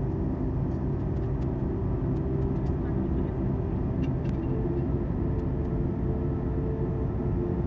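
Steady cabin noise inside a Boeing 737 MAX 8 airliner on approach: a low engine and airflow rumble with a few steady hum tones, a higher one joining about halfway through.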